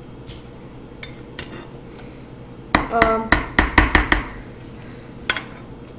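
Metal spoons chopping and tapping on a wooden cutting board, cutting Oreo pieces into softened ice cream. A few light taps, then a quick flurry of knocks about three seconds in, and one more knock near the end.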